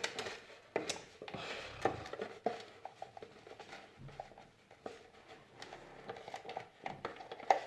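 Small, scattered clicks and light knocks of plastic parts of a Moulinex grinder being handled and fitted back into place.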